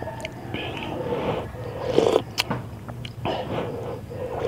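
Close-miked chewing and mouth sounds of someone eating rice and taro soup with a spoon. There are several sharp clicks, and a louder noisy burst about two seconds in.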